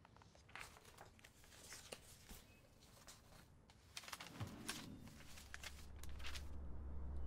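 Sheets of paper rustling in short bursts as they are leafed through and turned over. A low steady hum comes in over the last couple of seconds.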